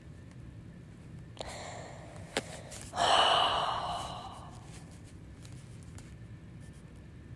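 A person sighing: a softer breath, then a heavy breathy exhale about three seconds in that fades away over a second or so. Two faint clicks come just before the sigh.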